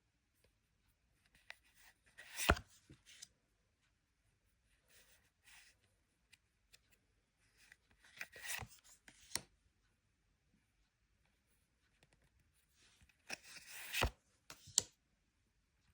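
Faint rustling and scraping of Pokémon trading cards and their packaging being handled, in three bursts about six seconds apart, each with a sharp tap.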